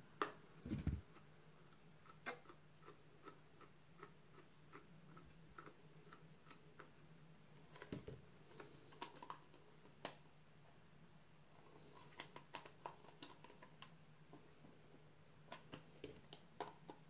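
Faint, scattered light clicks and taps of hands handling a Samsung wireless charging pad's plastic shell and precision screwdrivers, in small clusters with quiet gaps between.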